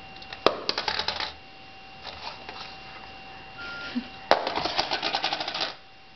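A plastic mobile phone knocked and dropped onto a wooden floor. There is a sharp knock with a short clatter about half a second in, then a louder impact about four seconds in followed by a rapid clattering that lasts over a second as the phone comes to rest.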